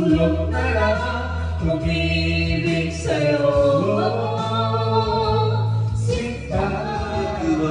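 A song sung over a musical backing, with long held bass notes under the voice.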